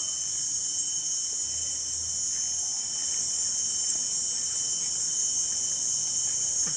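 Insects in a steady, high-pitched chorus, with one thin steady whine beneath it.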